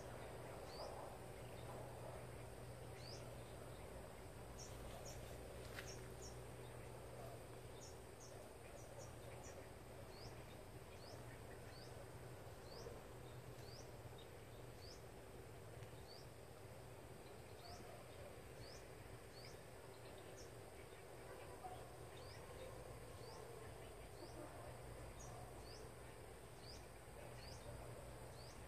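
Quiet outdoor ambience: a bird repeats a short, high chirp about once a second over a faint, steady low hum.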